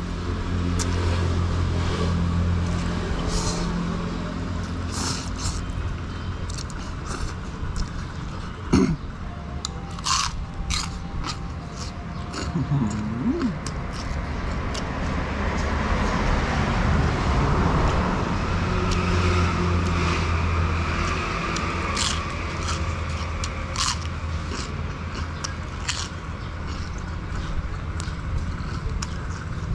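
A man slurping noodles and chewing, with chopsticks clicking against the bowl again and again. A vehicle engine runs in the background, louder near the start and again a little past halfway.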